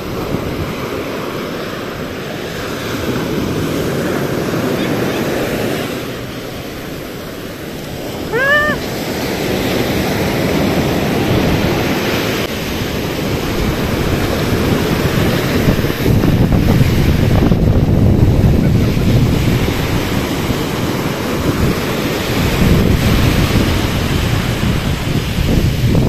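Ocean surf breaking and washing up on a sandy beach, with wind buffeting the microphone; the surf grows louder in the second half. A short high-pitched cry sounds once, about eight seconds in.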